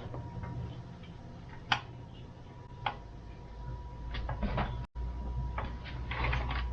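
Scattered clicks and light knocks of plastic and metal parts being handled on a new chainsaw power head with its covers off. Two sharp clicks stand out, over a faint steady high tone.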